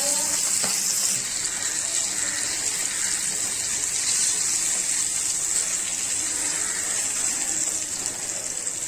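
Fish frying in hot oil, sizzling steadily.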